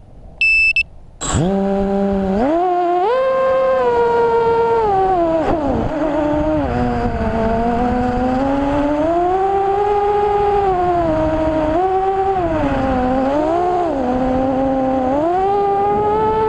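A short electronic beep, then an FPV quadcopter's motors spin up about a second in. They run with a whine that rises and falls in pitch as the throttle changes.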